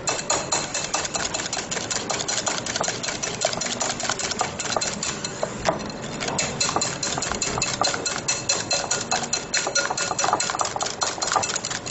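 Whisk beating thick semolina batter in a glass bowl: fast, rhythmic clicking of the whisk against the glass with the wet slap of the batter.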